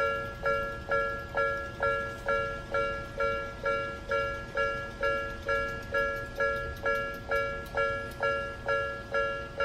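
Nikko-type electronic level-crossing alarm at a Japanese railway crossing, dinging steadily about twice a second. Each ding is a two-note chime that fades before the next. The alarm signals that a train is approaching.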